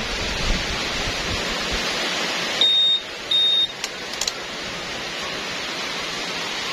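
Steady hiss of rain, with two short high beeps about half a second apart from a Honda scooter's keyless smart-key system a few seconds in, followed by a few clicks of its ignition knob being worked.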